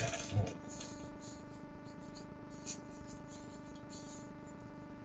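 Steady electrical hum with several fixed tones, heard through a video-call audio feed, with faint scattered rustles and a brief low sound about half a second in.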